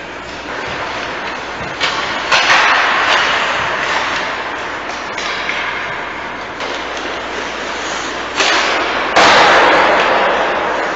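Ice hockey game sounds in an indoor rink: a steady hiss of skating and play, with several sudden knocks that ring out in the arena, two about two seconds in and the loudest near the nine-second mark.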